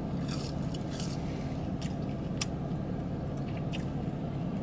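A person chewing and biting into crispy fries and a gyro close to the microphone: a few short crunches and mouth clicks over a steady low hum.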